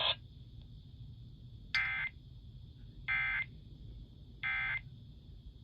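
Emergency Alert System end-of-message data bursts: three short, harsh digital chirps about a second and a half apart, marking the end of the test message. A faint steady high whine runs underneath.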